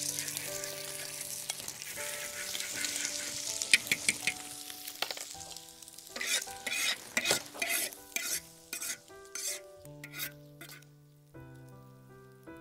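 Beaten egg frying with a loud sizzle in hot oil in a large iron wok, while a metal spatula stirs and scrambles it. The sizzle fades after about five seconds, and then come a dozen or so short scrapes of the spatula against the wok.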